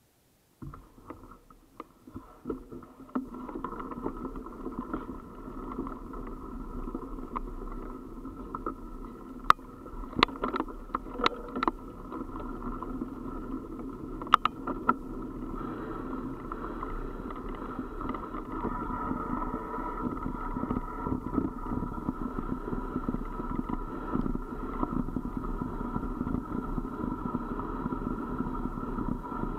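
Wheels rolling down a gravel mountain track, a steady rumble and rattle heard from a camera on the moving vehicle, with a few sharp knocks from bumps about ten to fifteen seconds in. It starts suddenly just after the beginning and gets a little louder in the second half.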